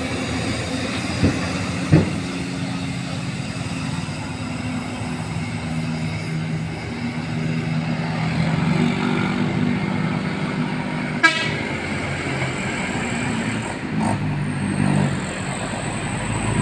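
A tour bus's Basuri multi-tone air horn sounding long held chords, fuller and louder from about eight to eleven seconds in, with a shorter chord near the end. A few sharp clicks come through.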